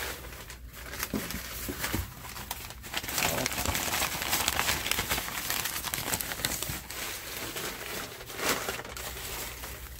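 Shredded newspaper packing rustling and crinkling as a hand rummages through it, a dense run of small crackles.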